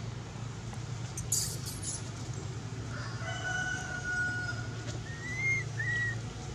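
A rooster crowing, one long held call about three seconds in, followed by two short rising chirps near the end. A steady low hum runs underneath, and a brief high hiss comes about a second in.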